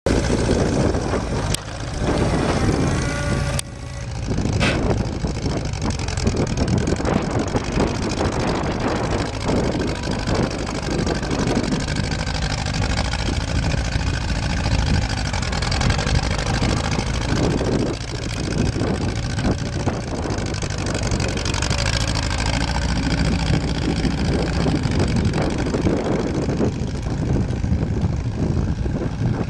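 International 284 compact tractor's engine running as the tractor is driven, its note rising and falling a little.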